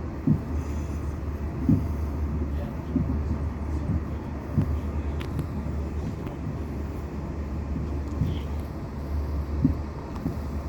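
Inside a moving passenger train carriage: the steady low rumble of the train running, with soft low thumps every second or two.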